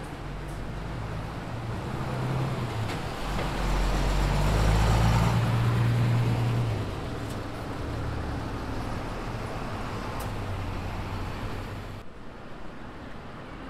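Bus driving past close by: its engine hum and road noise swell to a peak about four to six seconds in, then fade as it moves off. The sound drops suddenly near the end.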